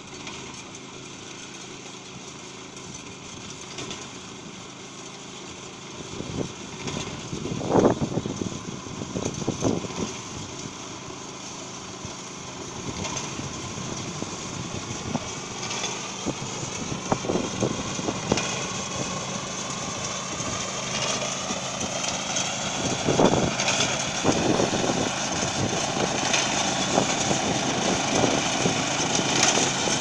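Engine of a small seat-type rice/wheat harvester with binder running steadily as it cuts and ties the crop, growing louder as the machine comes closer. A few sharp knocks stand out over the engine, the loudest about a quarter of the way in.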